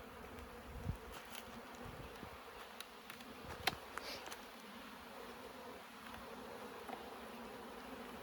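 Honeybees buzzing steadily around an open hive, a low even hum, with a few short clicks and knocks, the sharpest about midway.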